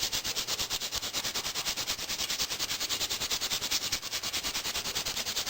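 Rapid, evenly spaced hammering on metal, about nine sharp blows a second over a steady hiss, running without a break.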